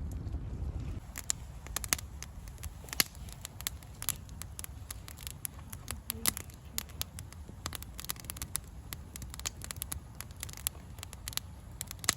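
Wood campfire crackling, with sharp irregular pops and snaps several times a second over a low rumble.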